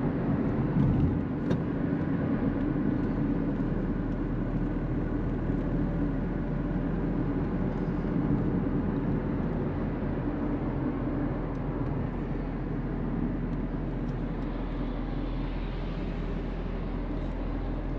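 Steady engine and tyre-on-road noise inside the cabin of a moving car, a constant low rumble with a few faint clicks.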